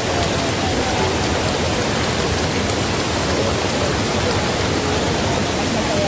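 Shallow mountain stream rushing over rocks: a steady wash of running water.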